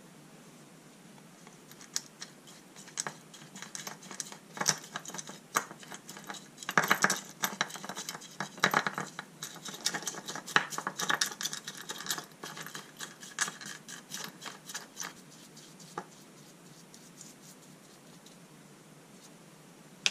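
Bristle brush scrubbing a small metal ratchet part in a pot of liquid, an irregular scratchy rasping with clicks. It is busiest in the middle stretch and thins out after about fifteen seconds, leaving a few scattered taps.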